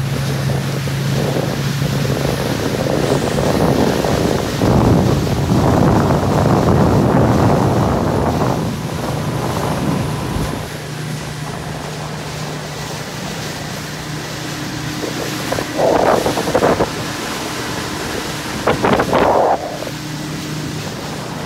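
Small boat's motor running steadily under wind buffeting the microphone and water rushing past the hull, with the wind noise loudest for several seconds in the first half. Two brief louder bursts come near the end, about three seconds apart.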